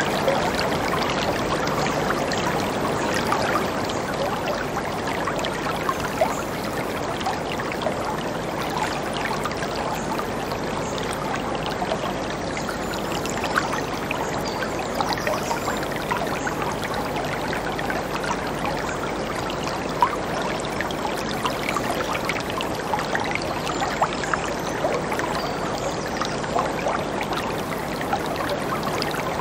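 Whitewater rapids rushing over boulders: a loud, steady roar of churning water, with a few sharper splashes standing out now and then.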